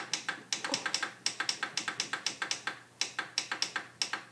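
Rapid sharp clicking, about five clicks a second with brief pauses, as a Magnavox CRT TV is flipped quickly through its channels.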